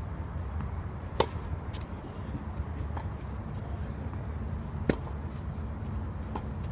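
Tennis rally: sharp pops of rackets striking the ball, two loud ones from the near player about a second and about five seconds in, with fainter pops from the far side in between.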